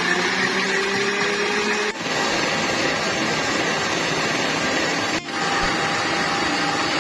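Stand mixer's motor running with its wire whisk beating batter in a stainless steel bowl, a steady whirring. It dips briefly twice, about two seconds in and about five seconds in.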